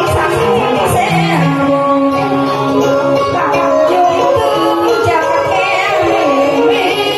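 A woman singing a Vietnamese song into a microphone over a karaoke backing track, in a duet with a man.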